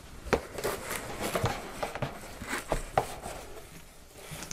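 Cardboard box and a heavy hardcover book being handled: the book scrapes against the cardboard sides and flaps as it is worked out of the box, with several soft knocks and rustles spread through.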